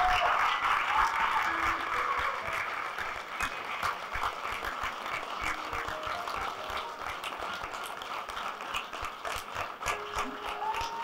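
Audience applauding, a dense patter of many hands clapping that is loudest at first and eases off over the first few seconds before carrying on more softly.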